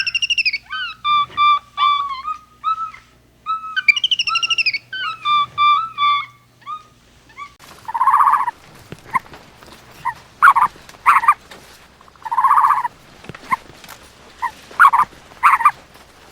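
Birds calling: a short chirping song phrase heard twice in the first half, then two longer calls about four seconds apart mixed with short chirps and clicks.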